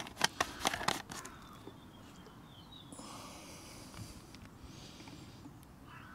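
Several sharp clicks and taps in the first second as a cap is done up on a small two-stroke mower engine, then quiet handling with a faint hiss twice.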